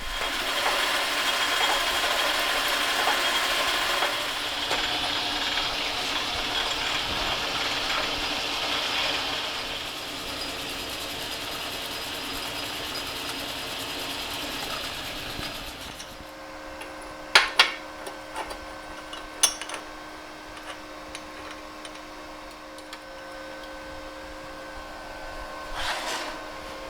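Metalworking in a shop: a steady, harsh cutting or working noise for about sixteen seconds, then it drops to a machine's steady hum, broken by a few sharp clicks and knocks.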